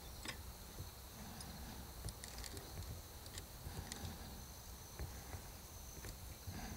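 Faint, scattered light clicks of metal parts being handled at the action of a bolt-action rifle.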